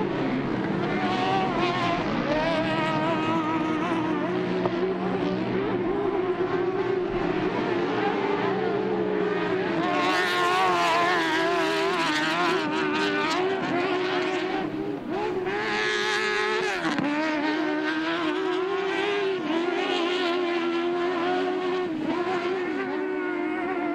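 UTV race engines running hard at high revs, the pitch wavering and dipping briefly several times before climbing again.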